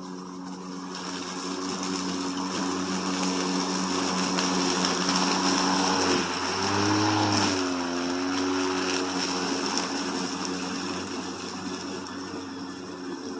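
Gasoline lawn mower engine running, growing louder to a peak about halfway through, where its pitch wavers briefly, then slowly fading.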